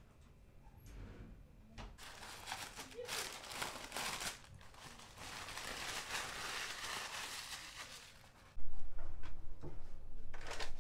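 Plastic wrapping on a pack of toilet paper crinkling and rustling as it is handled, with light knocks. Near the end a much louder low rumble with bumps comes in suddenly.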